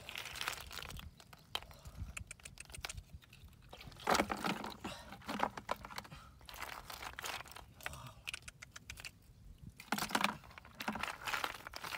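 Snail shells clicking and clattering against one another as they are scooped up by hand and rattled in a plastic bucket, in dense bursts about four seconds in and again near ten seconds.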